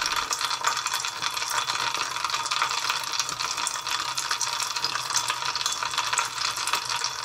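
Dense, rapid crackling of many tiny pops from manganese heptoxide micro-explosions in a beaker of ethanol over sulfuric acid, steady throughout and high-pitched, like frying. The ethanol has self-ignited and is burning.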